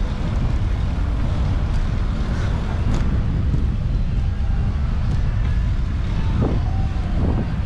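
Wind buffeting the microphone of a camera riding on a moving bicycle: a steady low rumble that does not let up.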